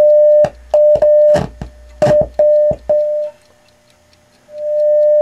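Steady mid-pitched test tone from a Quad 34 preamp's left output, cutting in and out several times with a crackly click at each break as the balance slide control is pushed. Near the end it drops out for about a second, then fades back in. The intermittent left channel points to a bad contact in the balance slide pot.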